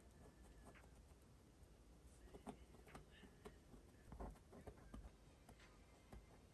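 Faint paintbrush sounds: a brush dabbing and stroking oil paint on canvas, with scattered light, irregular taps, a few slightly louder in the middle.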